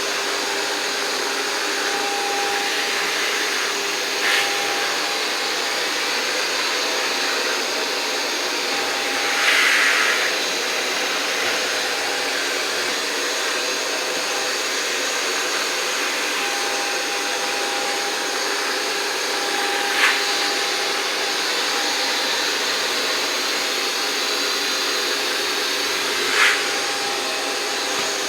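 iRobot Roomba Plus 505 combo robot vacuum running as it cleans: a steady whirring suction noise with faint steady tones. A few short knocks come through, and the noise swells louder for a moment about ten seconds in.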